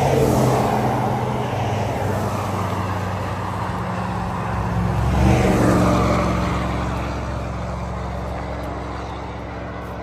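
Road traffic going by on a two-lane highway: one vehicle passes right at the start and another about five seconds in, tyre noise and engine hum swelling and fading.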